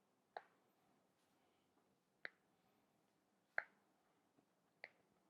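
Four short, sharp clicks about one to two seconds apart, the third the loudest, with a faint tick just before the last, against near silence.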